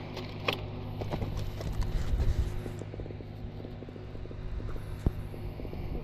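A steady low hum from a small motor, with scattered light clicks and knocks over it.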